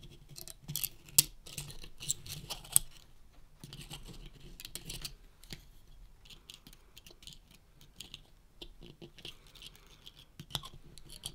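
Needle-nose pliers clicking and scraping against the metal spring and spool of a toy periscope as the spring end is bent into line with a hole. The sound is a scatter of small, sharp clicks and light scrapes, busiest in the first five seconds, with sparser ticks after.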